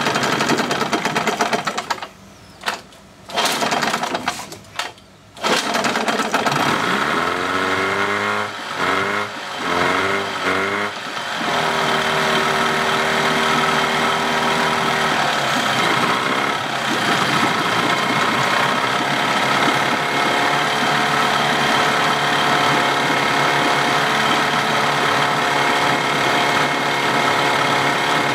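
Evinrude 15 hp two-cylinder two-stroke outboard just after a pull start, running, then missing and nearly stalling, firing only in short bursts for a few seconds. It is revved up and back several times with the throttle, then settles to a steady idle.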